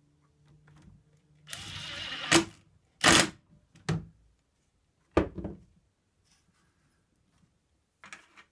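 Cordless drill running for about a second, driving a screw through a wooden corner block into a chair's seat rail. Then come several sharp knocks and clacks of the tool and the wood, the loudest about three seconds in.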